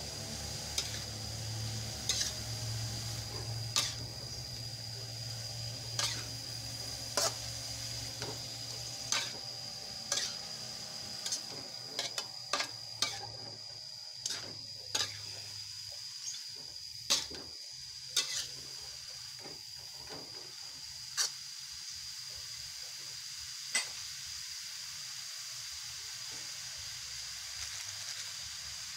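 Shredded young papaya stir-frying in a wok with a steady sizzle, while a spatula stirs and turns it, scraping and knocking against the pan every second or two. The knocks stop near the end, leaving only the sizzle.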